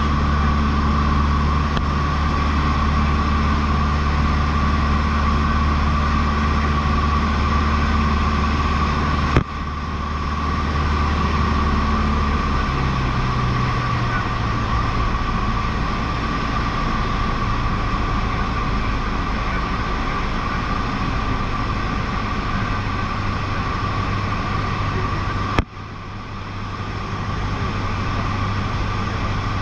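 Cessna 152's four-cylinder Lycoming engine and propeller running steadily in cruise, heard as a loud cabin drone. The engine note shifts about twelve seconds in. Two sharp clicks, one about nine seconds in and one near the end, each briefly drop the level.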